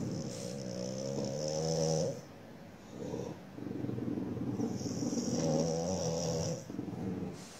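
French bulldog growling low and raspy through its nose, in two long spells with a short one between them.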